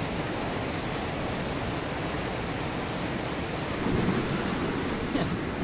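Steady rush of a mountain river running over rocks and rapids. About four seconds in, a brief louder splash as a person plunges into the water.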